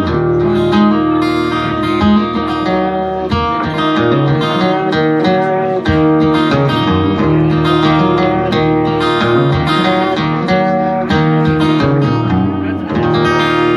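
Guitar music with no singing: strummed and picked guitar playing the instrumental outro of a country song, after the last sung line.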